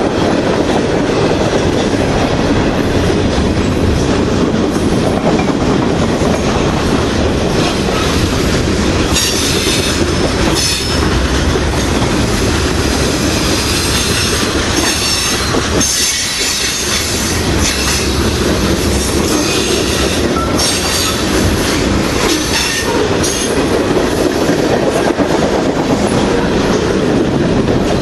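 Mixed freight train cars rolling past at speed: a steady rumble with wheels clacking over rail joints, and a high wheel squeal coming and going through the middle stretch.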